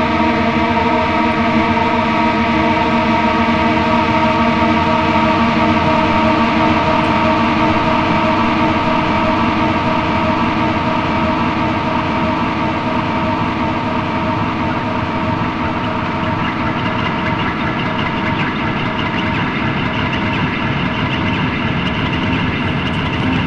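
Ambient drone of many held tones sounding together, steady and unbroken, with the lower tones fading a little midway and higher tones coming through toward the end.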